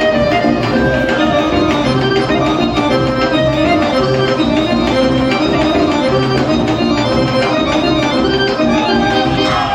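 Live folk band playing a Western Macedonian dance tune: an accordion carries the melody over a steady drum beat.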